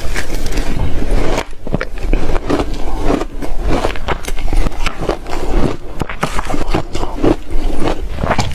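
Reshaved refrigerator ice being bitten and chewed close to the microphone: a loud, continuous run of irregular crisp crunches, several a second.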